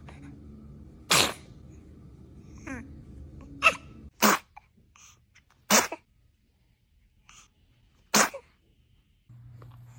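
A baby sneezing repeatedly: about five short, sharp sneezes in a row, some less than a second apart.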